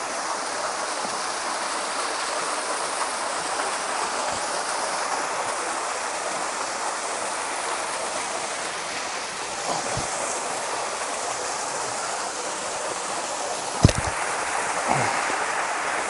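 Chudo-Krasotka waterfall pouring steadily, its water splashing as one even rush. Near the end comes a sharp knock, the loudest sound, with a couple of fainter knocks around it.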